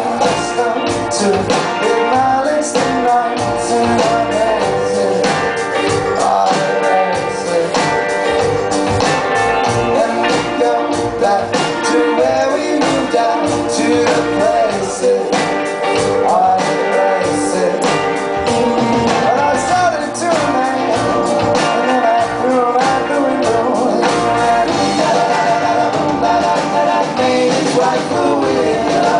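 Rock band playing live: electric guitars, bass guitar and drum kit, with a lead vocal sung over them.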